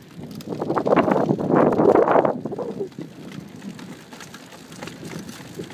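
Wind rushing over the microphone of a BMX bike coasting downhill. The rush swells loudly from about half a second in for a couple of seconds, then eases to a lower steady rush.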